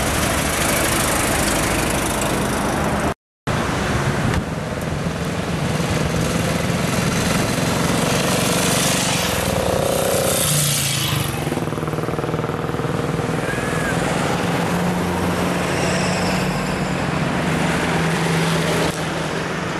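Vintage cars and a vintage motorcycle driving past one after another, their engines running over steady road traffic noise, with a passing vehicle swelling up about halfway through. The sound cuts out for a moment about three seconds in.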